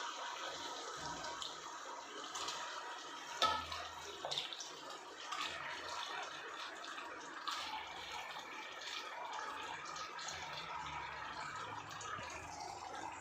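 Raw chicken pieces frying in hot oil and masala, sizzling steadily, with a sharp knock about three and a half seconds in and a few smaller knocks and clicks.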